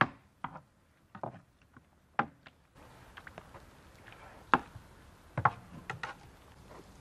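Knife striking and scraping a tomato-and-vegetable mixture on a metal baking tray. It gives scattered sharp knocks rather than a steady chopping rhythm, the loudest about four and a half seconds in.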